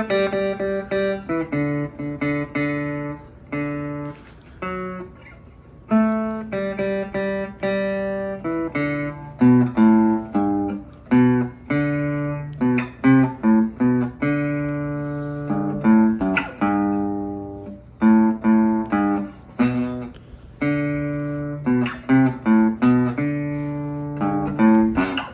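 Acoustic guitar played by hand: a simple melody of separately picked notes, each ringing and fading, with lower notes mixed in.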